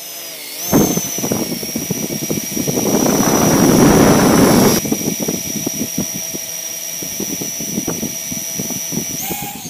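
Small quadcopter's electric motors and propellers whining steadily as it hovers close overhead, with crackling buffeting. A loud rushing noise swells through the middle seconds and cuts off abruptly about halfway.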